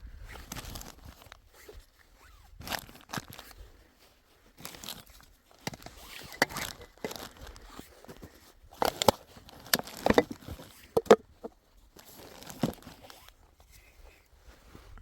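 Irregular crunching and crinkling handling noise: scattered sharp crunches, with a cluster of the loudest ones about nine to eleven seconds in.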